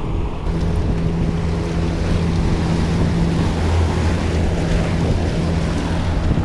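Yamaha outboard motor running steadily as the boat trolls, over the rushing of its wake and wind on the microphone.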